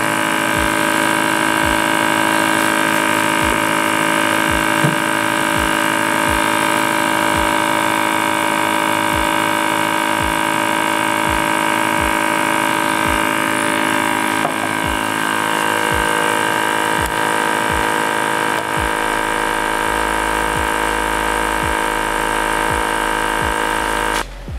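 Small electric vacuum pump running steadily, pulling a vacuum on a filter flask during vacuum filtration. A steady hum made of many held tones, with a faint low pulse a little more than once a second. It cuts off suddenly near the end.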